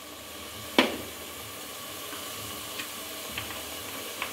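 Cooking oil added to a hot aluminium pot of raw chicken pieces, sizzling faintly. There is a sharp click about a second in and a few lighter clicks later.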